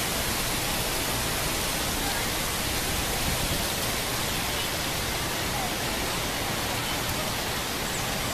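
Fountain water jets spraying and splashing into a pond: a steady hiss of falling water.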